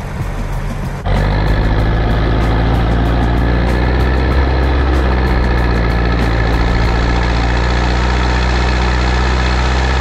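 Zetor 7341 tractor's four-cylinder turbodiesel running steadily. About a second in it becomes much louder and closer, heard right next to the engine.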